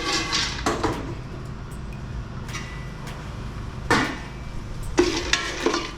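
Metal cooking pot and lid knocking and clinking on a gas stove while popcorn cooks inside, a few separate sharp knocks over a low steady hum.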